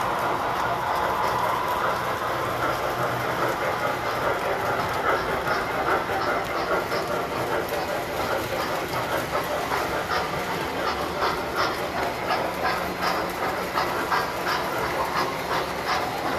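Tinplate model train running on its track: a steady whirring rumble with rapid clicking of wheels over the rail joints, the clicks growing denser from about four seconds in.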